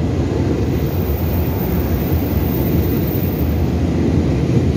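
Taiwan Railway express electric multiple-unit train running along the platform: a loud, steady rumble of wheels and motors.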